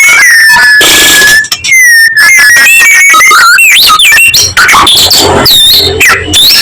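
White-rumped shama (murai batu) singing loudly: a long steady whistle in the first half, then a fast, varied run of rising and falling whistled notes and chattering phrases.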